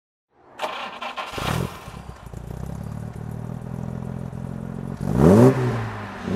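Jaguar E-type Series 1's straight-six engine being started: about a second of cranking, a loud catch, then a steady idle. About five seconds in it is revved once, the pitch rising and falling back.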